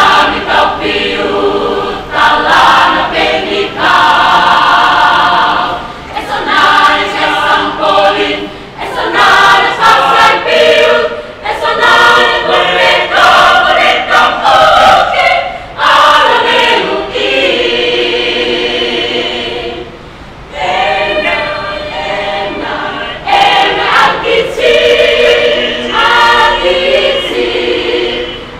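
Mixed choir of men's and women's voices singing in parts, with long held chords and a brief break about twenty seconds in.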